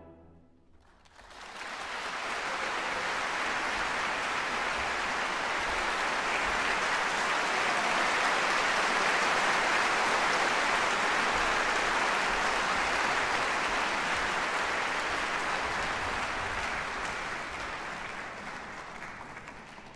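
The last orchestral chord's echo dies away, then about a second in an audience breaks into steady applause, which eases off near the end.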